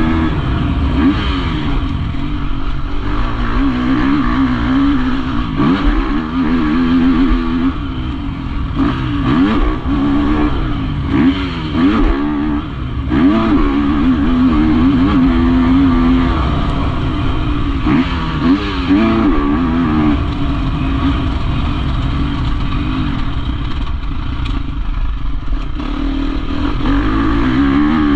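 Dirt bike engine heard from on board, revving hard and easing off over and over, its pitch climbing and dropping with every throttle change and gear shift as it is ridden around a motocross track.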